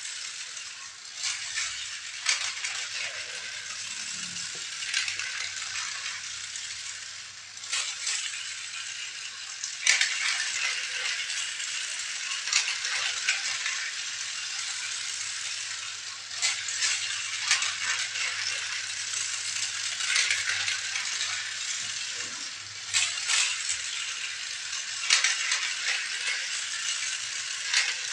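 Plastic toy vehicles and their packaging being handled during unboxing: a continual rustling and rattling with frequent sharp clicks and knocks.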